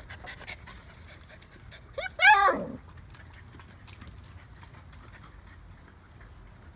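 An eight-week-old golden retriever puppy gives one high yip about two seconds in, a short note then a loud cry that rises and falls away. Faint scratchy clicks come in the first second or so.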